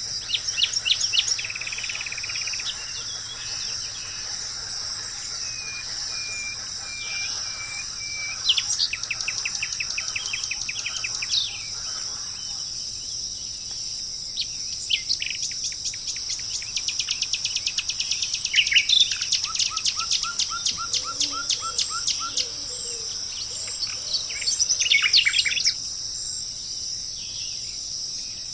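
Several songbirds singing in turn, with rapid trills and runs of quick repeated notes, over a steady high-pitched insect chorus.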